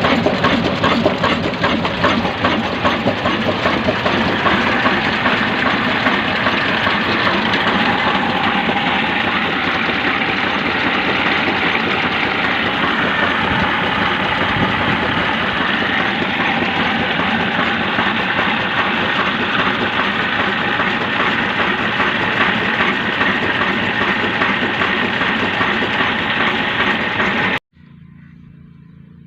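A 20 HP desi 'Kala' diesel engine running steadily, with a rapid, even knocking beat. The engine sound cuts off suddenly near the end, leaving a much quieter background.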